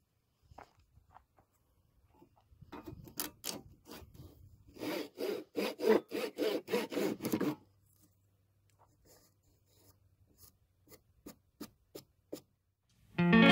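Handsaw cutting through a rough-sawn wooden 2x2 rafter, finishing a cut begun with a circular saw: a run of quick strokes, about three a second, from about three seconds in until past halfway, followed by a few faint clicks.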